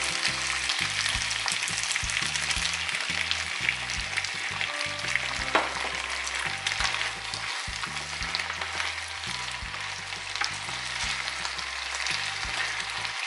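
Pork, bell peppers and onion in sweet and sour sauce sizzling and crackling in a nonstick frying pan over high heat, stirred with a wooden spoon that now and then knocks against the pan.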